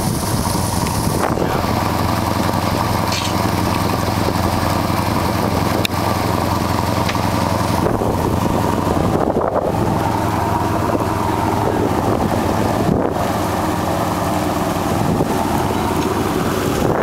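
Fishing boat's engine running steadily, with water rushing and splashing along the hull.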